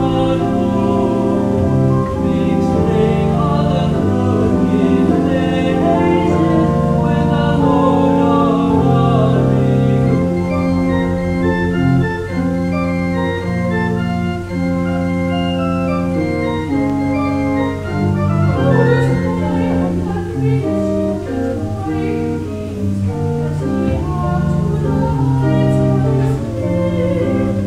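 Church organ playing a slow piece of held chords, the notes changing about every second.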